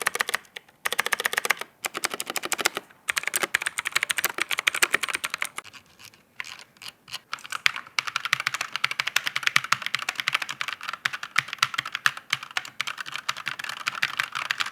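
Fast typing on a Fantech Atom MK886 full-size mechanical keyboard with blue clicky switches: dense runs of sharp clicking keystrokes, broken by a few brief pauses.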